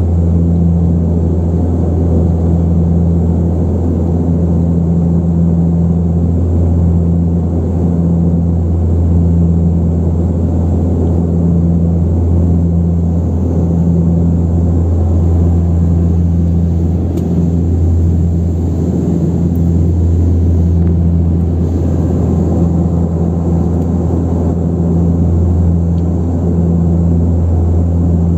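Cabin drone of an Antonov An-24RV's two Ivchenko AI-24 turboprop engines and propellers in cruise: a loud, steady low hum with a slow, regular throb.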